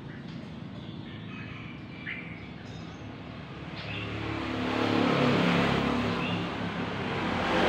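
A caged red-whiskered bulbul gives a few short, high chirps. From about four seconds in, a passing motor vehicle's engine swells up and becomes the loudest sound.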